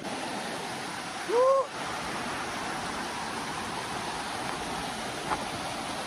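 Rushing water of a rocky mountain creek flowing over stones, a steady rush. About a second and a half in, a brief rising call stands out as the loudest sound, and a small click comes near the end.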